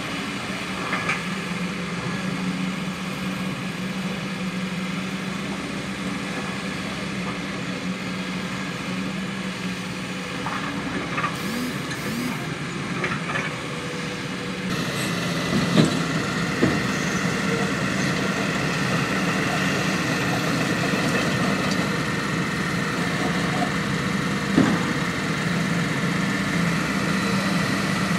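Heavy diesel engines of a crawler excavator and dump trucks running steadily, with a few short knocks. The engine noise grows louder about halfway through.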